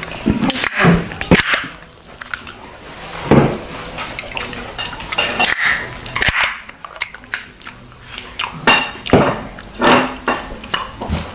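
Close-miked chewing and wet mouth sounds of a person eating stuffed clams, with scattered sharp clicks and clinks.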